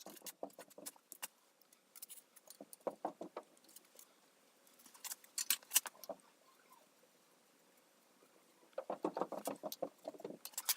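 Metal hand tools being handled: a scatter of light clinks and rattles, thickest near the end.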